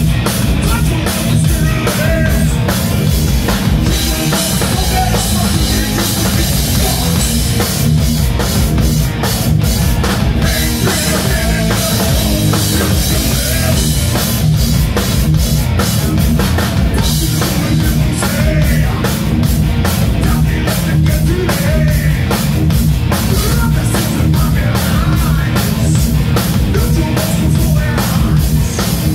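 Thrash metal band playing live: distorted electric guitar, electric bass and a fast, busy drum kit, with a man singing over them.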